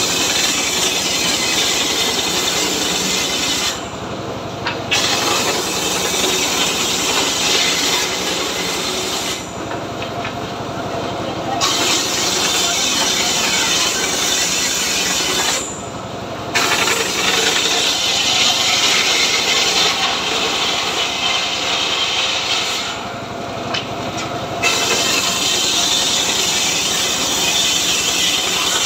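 An engine-driven homemade circular saw (gergaji srekel) is ripping a teak log into planks. The blade cuts in long stretches of several seconds, broken by four short dips where the cutting noise drops away and the engine runs on.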